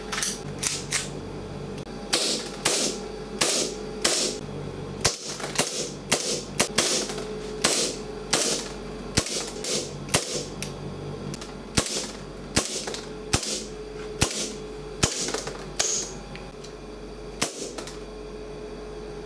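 Gas blowback airsoft pistol, a silver 1911-style Army Metal, firing a long string of about thirty shots at roughly one to two a second. Each shot is a sharp crack of the gas discharge and the slide cycling.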